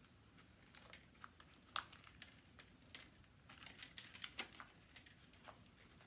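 Faint scattered clicks and crinkles of a cup being handled, squeezed and tapped to work a packed birdseed feeder loose from it, with one sharper click a little under two seconds in.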